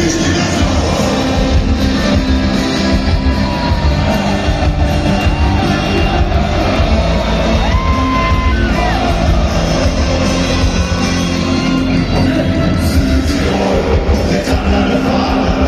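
Loud live rock band playing with singing, heard from the stands of a stadium, with crowd yells mixed in.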